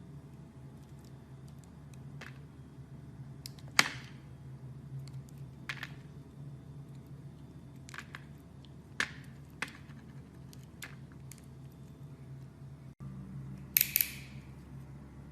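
Knife cutting into bars of soap: scattered crisp clicks and snaps as the blade cuts, with a louder crunching cut near the end, over a low steady hum.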